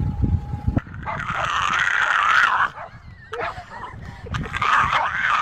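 French bulldog giving long, wavering, raspy cries: a long one, a short one, then another long one. A brief low rumble comes first.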